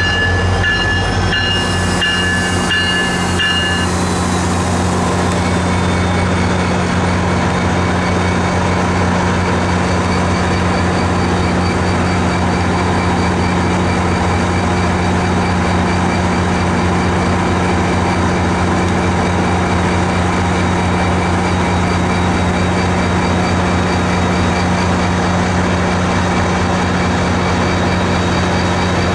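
MARC MP36PH-3C diesel locomotive's 16-cylinder EMD two-stroke engine running steadily with a deep, even drone. A high steady whine sounds alongside it for the first four seconds and stops abruptly.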